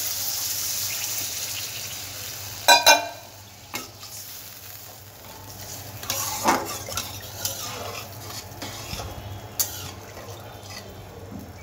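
Water poured into a hot metal kadai of oil-separated, fried masala with fish and vegetables, sizzling hard and fading over the first couple of seconds as the gravy forms. Then a metal spatula stirs and scrapes in the pan, with two sharp metallic clinks about three seconds in and a few more knocks later.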